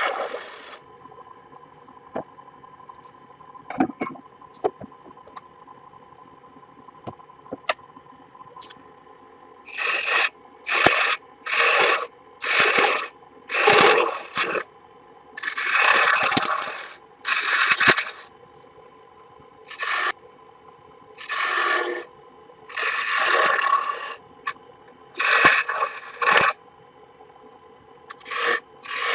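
A few light clicks, then a run of about a dozen separate scraping strokes, each under a second, with short pauses between them.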